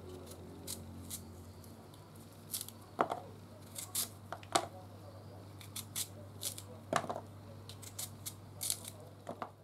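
Small knife slicing thin pieces off a peeled unripe mango held in the hand: a run of short, crisp, irregular cuts, with a few louder knocks as slices drop into a plastic bowl. A steady low hum runs underneath.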